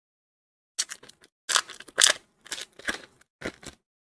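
Foil wrapper of an Upper Deck hockey card pack being torn open and crinkled by hand, in about five short crackling bursts starting just under a second in.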